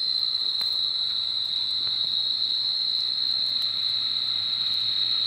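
A steady, unbroken high-pitched whine that holds one pitch throughout, with a faint click about half a second in.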